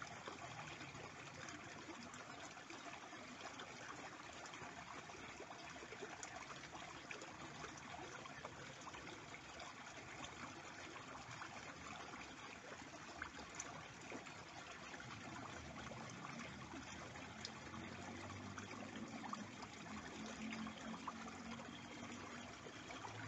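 Shallow stream flowing steadily: a soft, even trickling rush of water.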